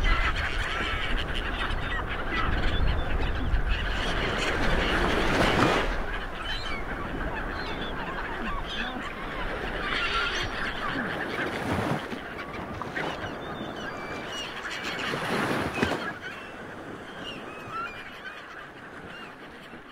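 Surf washing onto a sandy beach in repeated swells, with birds calling over it. The wash grows quieter near the end.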